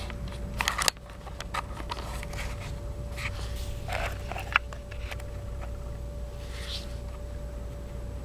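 Handling noise from an inline DC watt meter and its cables being picked up and moved: a few sharp clicks and scrapes about a second in and again around the middle, over a steady low rumble and a faint steady whine.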